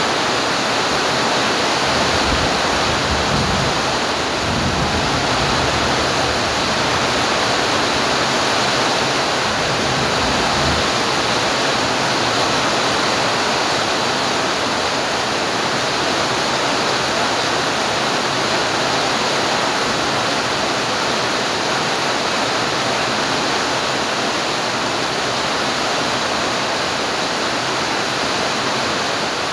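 Steady rain falling as an even, unbroken hiss, with a low rumble underneath during the first ten seconds or so.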